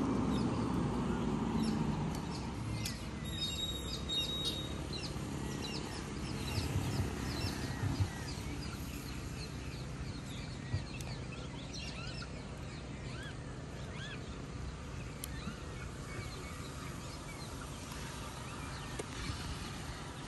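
Birds chirping repeatedly over a steady low background rumble, with a brief thin whistle-like note about three seconds in.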